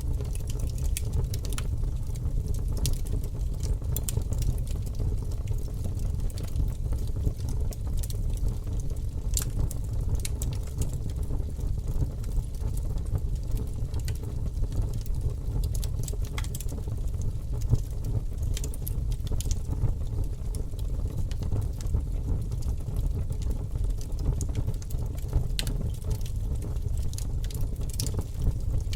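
Fire burning with a steady low rumble and scattered sharp crackles and pops.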